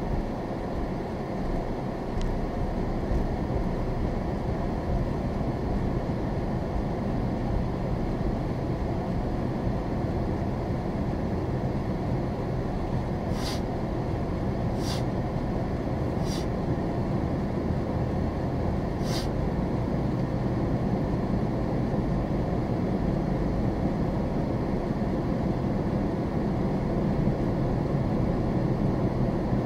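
Car road and engine noise heard from inside the cabin at low speed, a steady low rumble that grows a little louder as the car speeds up near the end. About halfway through come four sharp clicks.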